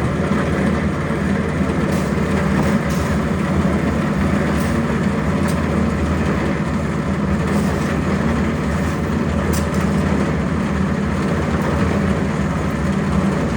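Portable concrete mixer running steadily while mixing a batch of concrete from cement, sand, gravel and water, with a few faint clicks.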